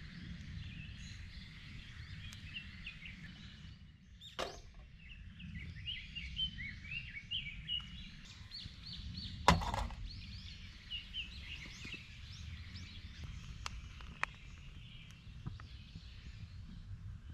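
Small birds chirping and singing over a low, steady background rumble. A faint click comes about four seconds in, and a single sharp knock about halfway through is the loudest sound.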